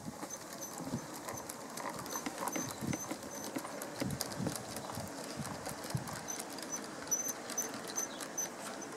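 Large-scale model railway freight wagons rolling past on outdoor track, their wheels clicking and knocking over the rail joints in an irregular rhythm of several clicks a second.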